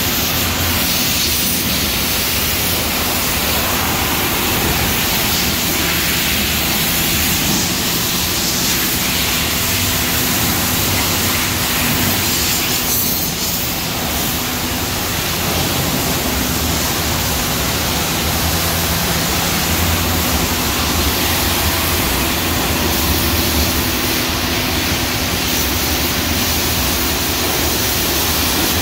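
Pressure washer wand spraying water onto a car, a loud steady hiss of spray with a steady machine hum underneath.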